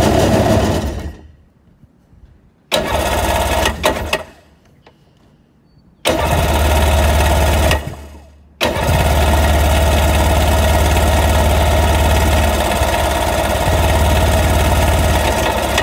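Sea-Doo GTI's Bombardier Rotax 717 two-stroke twin being started on the electric starter with the choke held: four loud bursts with short quiet gaps between them, the last running steadily for about seven seconds before cutting off. It is struggling to start because the crankcase is full of oil from years of sitting, which the owner suspects has fouled the plugs again.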